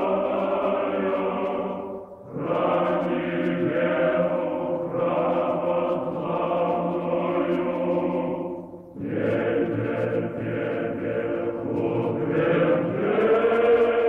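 Choir singing a slow chant in long sustained phrases, breaking off briefly about two seconds in and again about nine seconds in.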